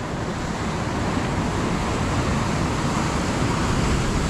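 Ocean surf washing onto the beach, a steady rushing noise that slowly grows louder, with wind on the microphone.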